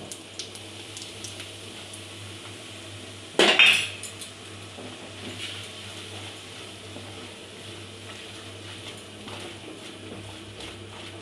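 A spoon scraping and clinking against a stainless steel pan as pearl millet flour is stirred into hot oil to roast. There is one loud clatter about three and a half seconds in, then quieter scraping.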